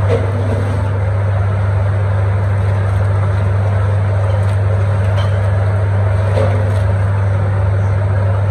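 A steady, loud, low mechanical drone, like a running motor or engine, unchanging throughout.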